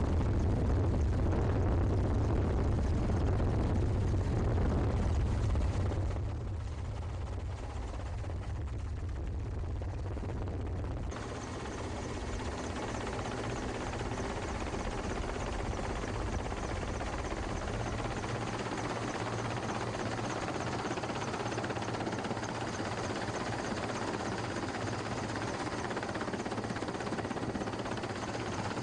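Steady helicopter engine and rotor noise. It has a heavy low rumble for the first six seconds, then changes abruptly twice and settles into a thinner steady drone with a faint high whine.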